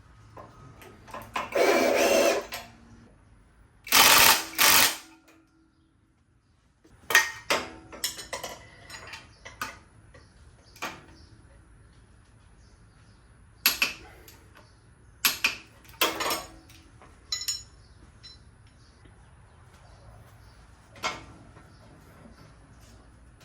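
Power tool running in short loud bursts a few seconds in as the new strut-mount nut is run down on the strut, followed by scattered metallic clanks and clicks of the strut and spring compressor being handled.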